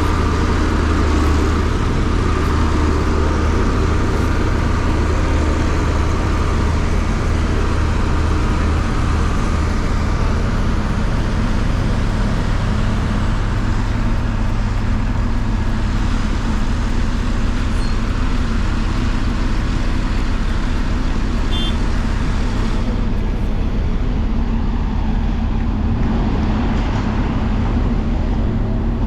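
Engines of heavy road-construction machinery running steadily, a deep continuous hum that eases somewhat after about ten seconds.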